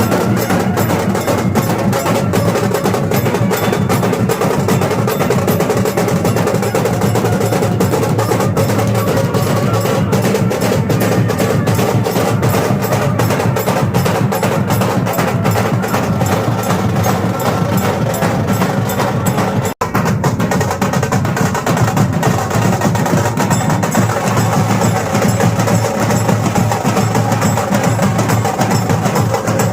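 Loud percussion-heavy music with a dense, fast, steady beat, cutting out for an instant about two-thirds of the way through.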